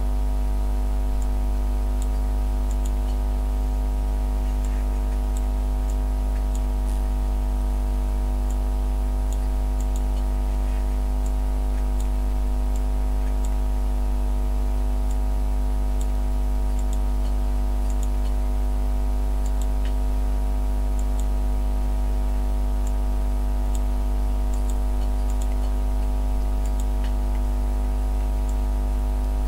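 A steady, unchanging low hum with many even overtones, with faint scattered high ticks over it.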